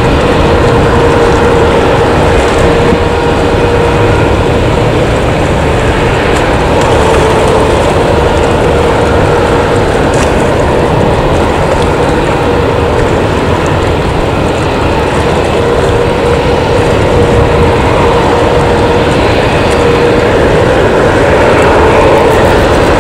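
An Airbus A321neo's two Pratt & Whitney PW1100G geared turbofan engines at takeoff thrust through the takeoff roll, lift-off and climb-out: steady, loud jet noise with a steady humming tone running through it.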